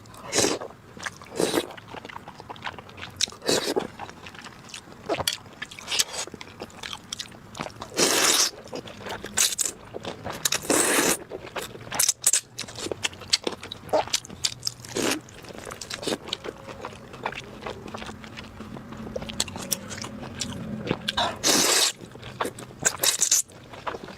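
Close-miked eating sounds: irregular bites, crunches and chewing, with a few longer, louder noisy sounds in the middle and near the end.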